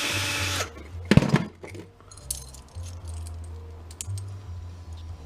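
A power drill runs briefly and stops, then a loud metal clank about a second in, followed by small scattered metal clicks as parts of the steel switch box are handled. Faint background music.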